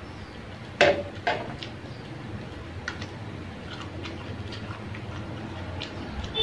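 Wooden chopsticks clicking against an electric hot pot and a small bowl as noodles are lifted and served. There are two sharper knocks about a second in, then lighter scattered ticks over a low steady hum.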